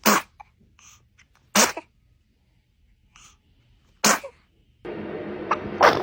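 A baby sneezing four times in short, sharp sneezes, one every couple of seconds. A steady hiss comes in just before the last sneeze.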